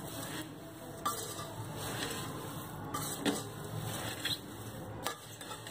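Metal spoon stirring dry puffed rice in an aluminium pot: a steady dry rustle of the grains, with a few sharp clinks of the spoon against the pot's side.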